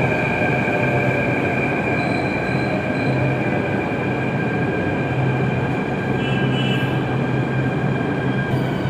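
Delhi Metro train running into the station platform: a steady rumble of wheels on rail with a high wheel squeal held over it.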